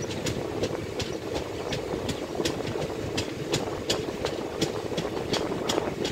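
Express passenger train running at speed, heard from beside the coaches: a steady rumble of wheels on rail, with a regular clickety-clack of about three clicks a second as the wheels cross rail joints.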